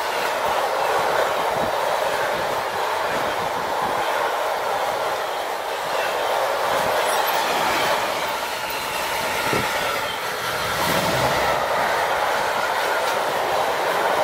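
Freight train wagons, car-transporter and tank wagons, rolling past at speed: a steady noise of steel wheels on rail with light clicks from the wheels.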